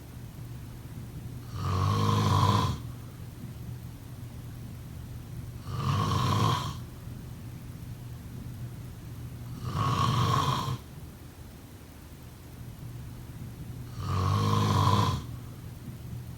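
A person snoring: four snores about four seconds apart, each lasting about a second.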